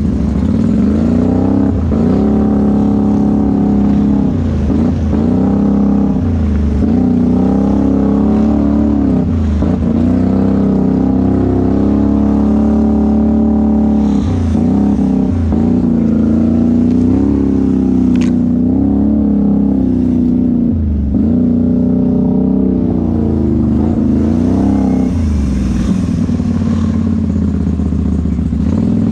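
Can-Am ATV engine being ridden hard, revving with its pitch dropping and climbing again every few seconds as the throttle is let off and opened. A brief sharp click sounds about two-thirds of the way through.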